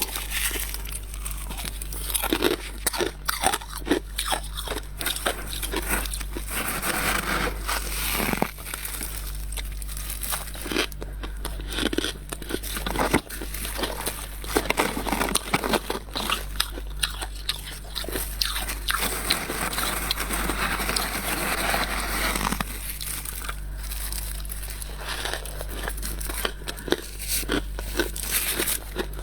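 Freezer frost being bitten and chewed: a dense, irregular run of crisp crunches, with a few longer stretches of softer crushing, over a steady low hum.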